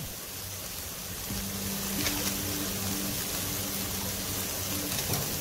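Chopped onion, tomato and green chillies sizzling gently in a frying pan, with a steady low hum joining about a second in.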